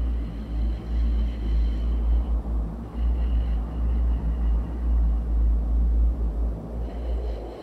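Deep rumbling drone in a cinematic composition, with faint steady high tones above it; it eases off near the end.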